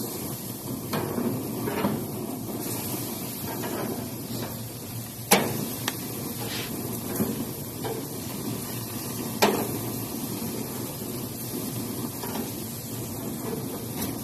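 Chicken grilling on a wire barbecue rack: a steady hiss, with a few sharp clacks of the grill gear being handled, two loud ones about five and nine seconds in.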